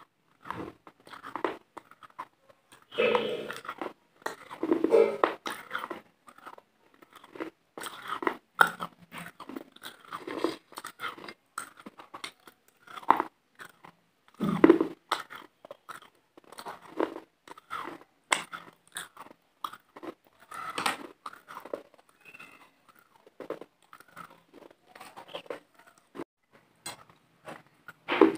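Close-miked chewing and biting into food: irregular crunchy crackles and mouth clicks, with a few louder bites along the way.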